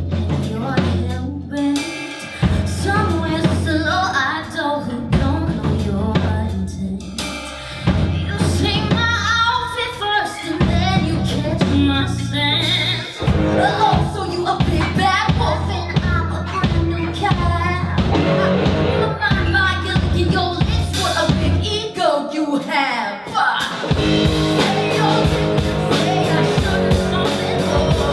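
A woman singing a musical theatre song, backed by a live band of piano, keyboard, guitars, bass and drums. Near the end the bass drops out for a moment, then the full band comes back in with a steady drum beat.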